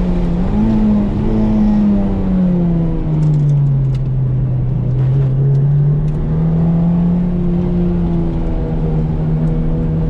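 Toyota MR2 engine heard from inside the cabin under track driving. The revs drop for a couple of seconds about a third of the way in, then climb back and hold steady, over a constant rush of tyre and wind noise.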